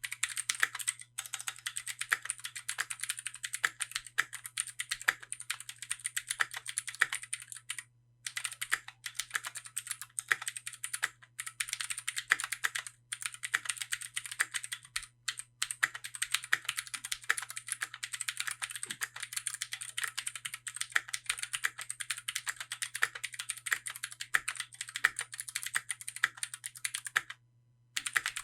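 Keychron Q1 gasket-mount mechanical keyboard with factory-lubed Gateron Phantom Blue switches being typed on continuously: a fast, dense run of key clicks, broken by a few brief pauses and a longer one near the end.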